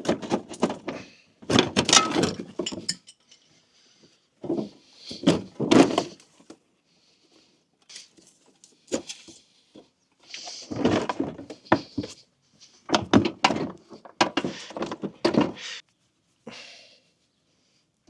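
Clattering, clinking and knocking of metal and plastic car-body parts being handled and pulled loose while a front bumper is removed. The sound comes in several bursts with short pauses between.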